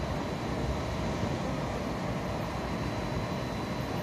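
Steady low rumble and hum at a railway platform, with a faint constant high-pitched whine. No train passes and nothing starts or stops.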